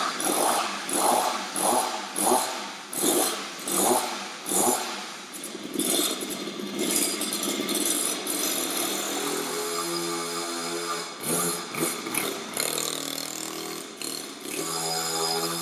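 A 50cc minibike engine being started: a run of short bursts about every two-thirds of a second, then it catches and runs with a steady note that rises and falls as the bike is ridden.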